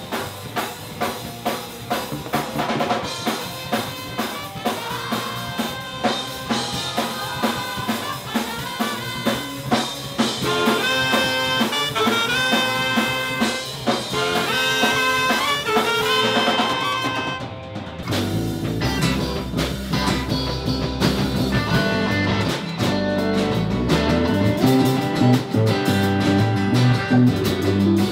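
Live band music: a horn section with trumpet plays a stepped melody over a drum kit, then about two-thirds of the way through it cuts to a different band with electric guitar and electric bass.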